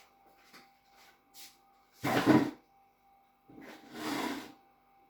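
Kitchen trash bin being used: a sharp knock about two seconds in, then a longer rustle about a second later, as something is thrown away.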